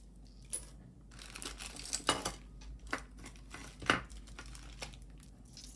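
Costume jewelry being handled on a table: a metal bracelet and chain necklace clinking and clicking softly, with light rustling and a few sharper clicks spaced irregularly through.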